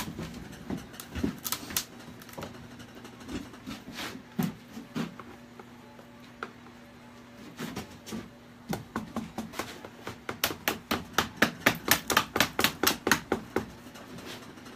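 A mallet tapping a plastic flooring spacer into the seam between a fiberglass mold and the sculpt, to pry the mold loose. Scattered single knocks, then a quick run of taps, about five a second, in the last third.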